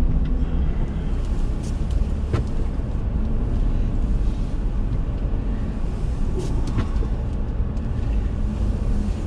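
A car driving: a steady low rumble of engine and road noise, with a few faint clicks and knocks.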